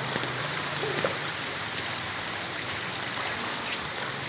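Steady hiss of rain falling on floodwater, with the water moving over the flooded road.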